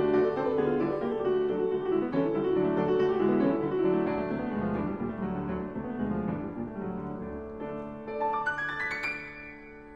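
Background piano music in a classical style. Near the end a quick run of rising notes plays, and then the music fades down.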